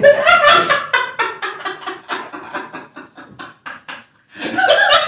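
A man laughing hard in quick repeated bursts that fade over about four seconds, then breaks out again louder near the end.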